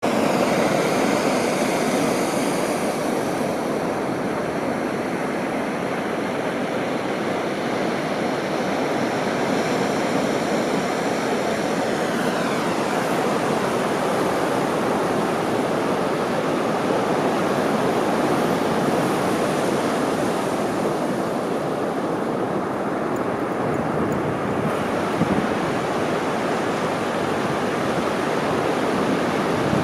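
Surf breaking steadily on a sandy beach, a continuous rushing wash of waves. A faint high whine drops in pitch about twelve seconds in.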